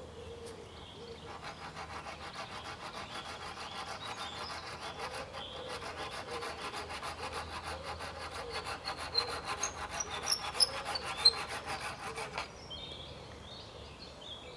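String rasping against wooden poles as it is wound round and pulled tight to lash a crossbar to an upright, a fast, even scraping that starts about a second in and stops a couple of seconds before the end.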